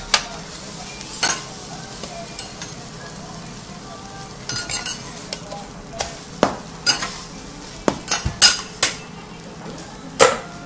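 Okonomiyaki sizzling on a steel teppanyaki griddle, with scattered sharp scrapes and taps of flat metal spatulas on the griddle. The strokes bunch together about eight seconds in, and there is one more near the end.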